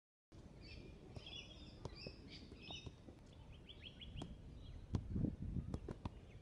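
Birds chirping, then the soft thumps of a football being juggled off the feet, several in quick succession from about five seconds in.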